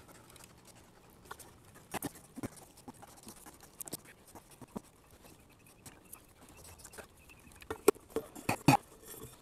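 Scattered light clicks and rustling of electrical wires and small fittings being handled by hand, with a few sharper clicks near the end.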